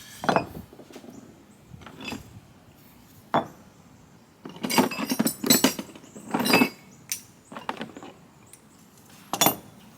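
Small metal engine parts clinking and clattering against each other as they are handled and set down: single sharp clinks every second or so, a busy run of clattering in the middle, and a last clink near the end.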